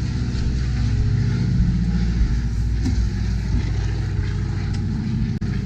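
Steady low engine drone running throughout, with a brief click about five seconds in.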